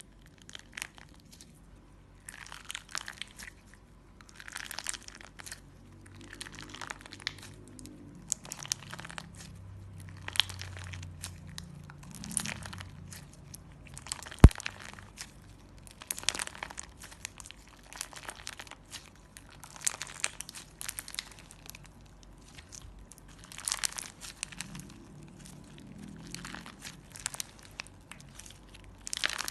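Clear slime mixed with glitter and beads being squeezed and stretched by hand, giving repeated bursts of crackling and popping, about one a second. One sharp click about halfway through.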